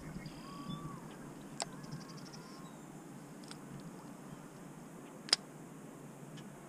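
Quiet open-air background with a few faint, short rise-and-fall animal calls and two sharp clicks, the louder one about five seconds in.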